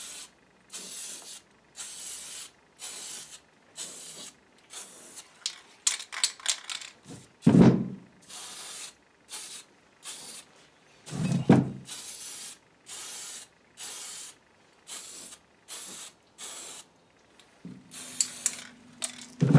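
Aerosol spray paint can spraying black paint in a long series of short hissing bursts, each under a second, with brief pauses between them. Two louder, duller thuds stand out about a third and halfway through.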